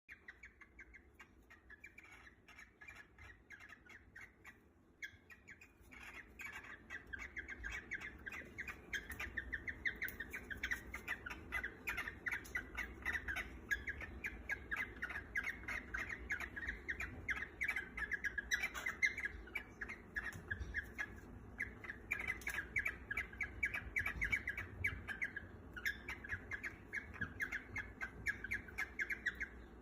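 Cockatiels calling in a fast run of short, repeated squawks, fainter for the first few seconds and louder from about six seconds in.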